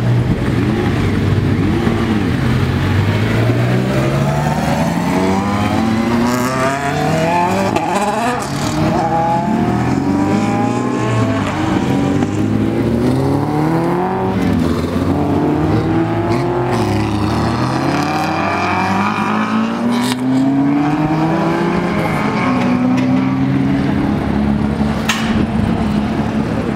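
Race car engines accelerating hard on a circuit, each climbing in pitch through a gear and dropping at the upshift, over and over, with cars passing by.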